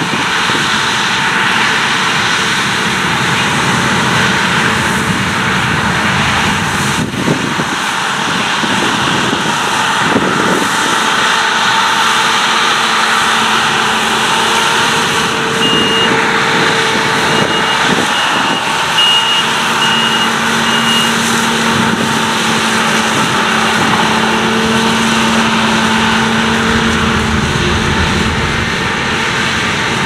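Claas Lexion 600 Terra Trac combine harvester running steadily as it harvests oilseed rape: a dense, loud machine roar with a few steady whining tones. A series of short high beeps sounds briefly near the middle.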